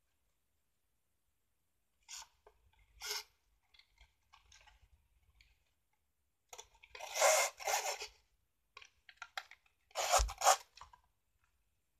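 A sheet of cardstock rustling and scraping on a cutting mat as it is handled and turned while ribbon is threaded through its punched holes. It comes in short bursts: two brief ones early, then longer rubbing about halfway through and again near the end, with a soft knock in the last burst.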